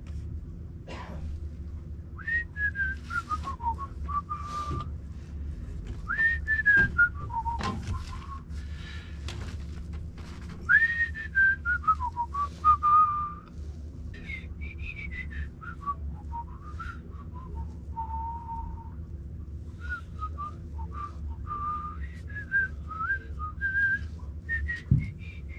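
A person whistling a tune: a single clear note sliding up and down in repeated phrases, with a few sharp clicks and knocks from handwork and a steady low hum underneath.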